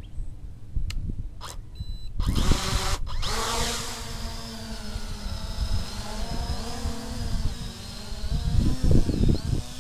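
XK X350 quadcopter's motors spinning up about two seconds in, then the steady buzzing whine of its four propellers in flight, the pitch wavering up and down as the throttle changes. Low wind rumble on the microphone throughout.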